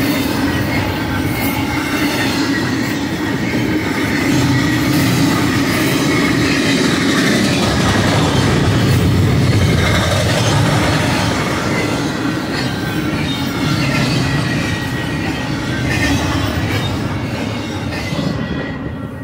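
Double-stack intermodal well cars of a fast BNSF freight train rolling past: a steady, loud rumble of steel wheels on rail with a thin high wheel squeal and a few clicks. The sound drops off sharply near the end as the last cars go by.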